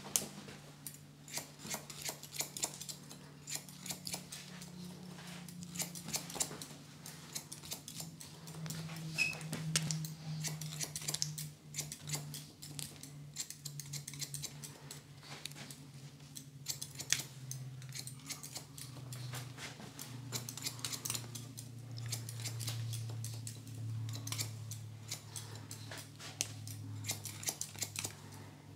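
Barber's scissors snipping wet hair, many crisp snips in quick irregular runs. A low steady hum runs underneath, slowly falling in pitch.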